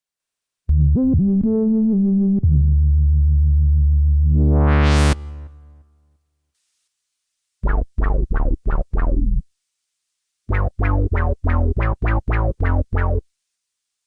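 Roland Cloud Juno-60 software synthesizer playing preset demos. First come a few held low notes, ending in a rising filter sweep that brightens sharply and then dies away. After a short silence come short, clipped bass notes from the 'BS Slow Blob' preset in two quick runs, about seven and then about eleven.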